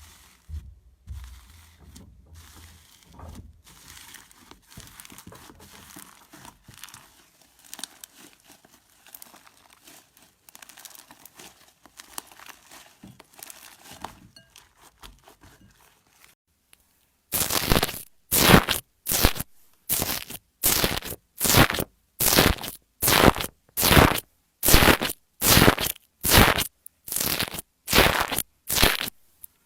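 Slime being squished by hand, first as faint sticky crackling and popping. After a short break about 17 seconds in, loud crunchy squeezes come in a steady rhythm, about one and a half a second.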